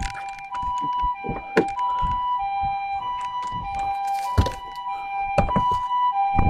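Two-tone hi-lo emergency siren, switching between two steady pitches about every half second, with scattered knocks and thumps over it.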